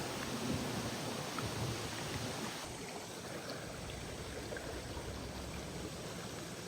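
Steady rush of flowing river water with wind buffeting the microphone in low rumbles during the first few seconds; the sound changes abruptly, becoming duller, about two and a half seconds in.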